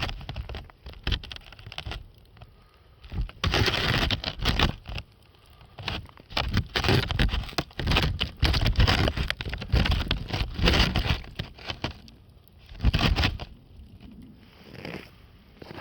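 Campfire crackling and popping, with gusts of wind buffeting the microphone in loud irregular surges, the strongest through the middle of the stretch and once more near the end.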